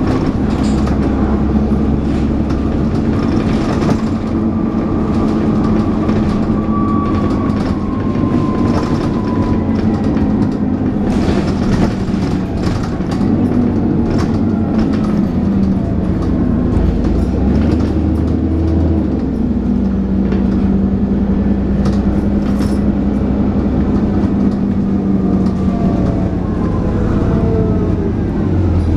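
Dennis Trident 2 double-decker bus engine under way, heard from inside the bus, with a turbo whine (the 'hoover') that glides down in pitch and engine pitch changes a few times as the gears shift. Body panels and fittings rattle throughout.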